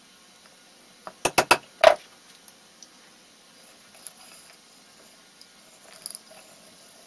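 A claw hammer tapping a screwdriver into the top of a jacaranda wood blank: five quick sharp strikes about a second in. Then faint scratching as a marker is drawn across the wood.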